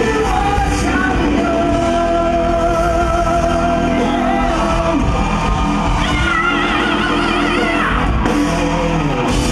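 Live rock band with electric and twelve-string acoustic guitars playing under male vocals. About six seconds in the singer holds a long high note with vibrato, which bends down near the end.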